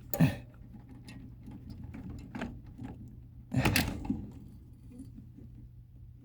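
Handling sounds at an HVAC contactor as a lead is taken off it: a sharp clack just after the start and a longer rattle about three and a half seconds in, with small knocks between, over a steady low hum.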